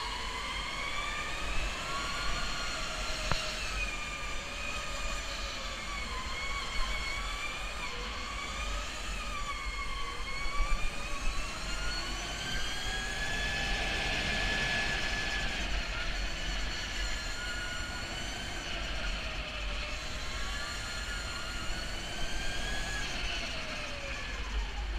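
Electric go-kart motor whining while racing, its pitch rising and falling with speed through the corners, over a steady low rumble of wind and tyres on the onboard microphone. A few sharp knocks about ten seconds in.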